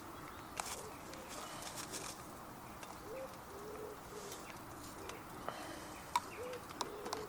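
A wild pigeon cooing in short phrases of low, soft notes, starting about three seconds in and again near the end, over a steady background hiss, with a few sharp clicks scattered through.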